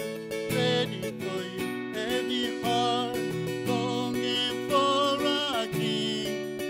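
Acoustic guitar strummed while a man sings over it, holding long notes that waver in pitch.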